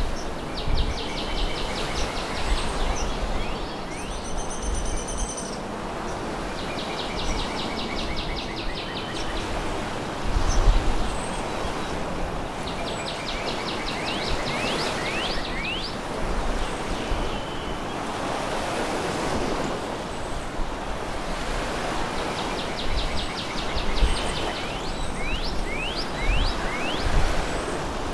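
Waves washing on a beach with a steady rush, with low gusts of wind buffeting the microphone. A songbird sings a rapid high trill about two seconds long, four times.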